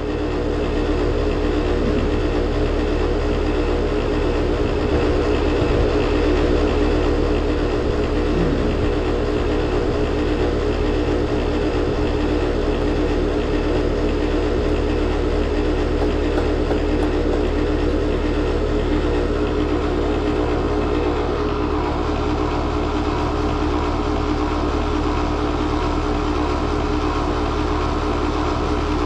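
Heat pump outdoor unit's compressor running with a steady, rough, horrible-sounding mechanical noise, 'like it's full of rocks'. It draws only 3.6 amps and is barely pumping, which the tech takes for an internal mechanical failure of the compressor.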